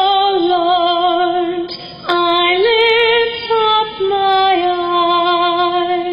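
A woman cantor singing the responsorial psalm solo, holding long notes with vibrato, with short breaks between phrases about two seconds in and near four seconds.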